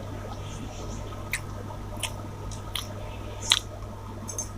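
Close-miked eating: wet chewing of a mouthful of rice and chicken masala, with short sharp lip smacks about every three quarters of a second, the loudest near the end, over a steady low hum.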